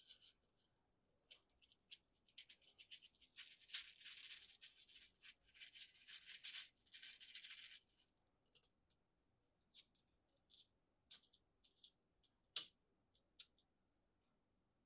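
Winchester large rifle primers rattling in a plastic primer flip tray as it is shaken, a dense high rattle of small metal pieces lasting about six seconds, then scattered light clicks as the primers are handled, with one sharper click a little before the end.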